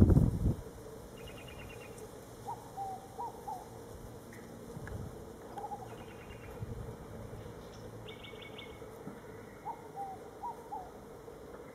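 Birds calling: a short phrase of quick rising-and-falling notes, given three times with pauses, and three bouts of a high, rapid trill between them. A loud low rumble in the first half-second.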